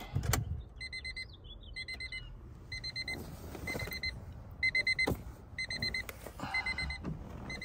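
The 2000 Honda Civic's dashboard warning chime beeping in short runs of quick high pips, about one run a second, with a few clicks and knocks of handling in the cabin.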